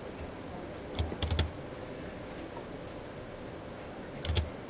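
Clicks and taps on a laptop: one about a second in, a quick run of two or three just after, and a double tap near the end, over a faint steady hum.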